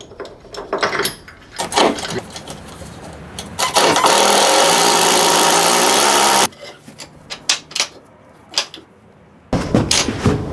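Cordless drill with a T55 Torx bit running steadily for a few seconds, driving in the bolt of a truck-bed tie-down clip, with clicks and knocks of parts and tools being handled before and after. Another steady loud noise starts near the end.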